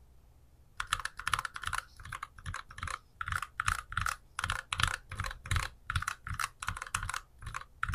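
Typing on a Keychron Q11 mechanical keyboard fitted with Gateron G Pro brown tactile switches: a fast run of key clacks that starts about a second in, not very loud.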